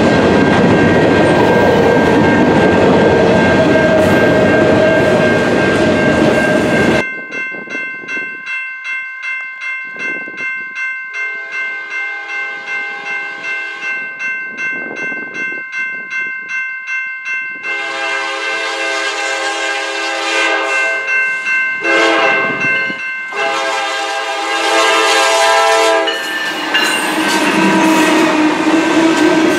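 Freight cars rolling past with a steady clatter for the first several seconds. After a cut, a grade-crossing bell dings about twice a second while a Norfolk Southern GE C40-9W locomotive sounds its horn in the crossing pattern, long, long, short, long. Near the end the locomotives pass close by, their engines running under load over the noise of the wheels.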